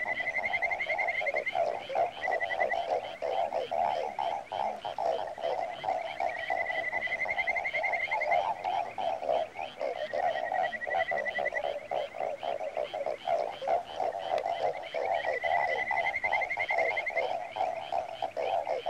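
A dense chorus of calling animals, continuous and pulsing, with a rapid, slightly rising trill about one to two seconds long that repeats every few seconds.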